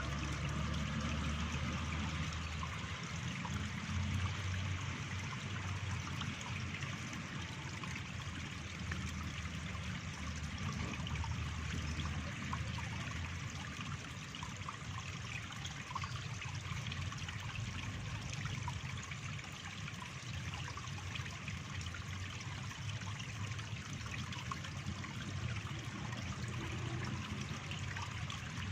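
Steady trickle of flowing water in a stream, with a low steady rumble underneath.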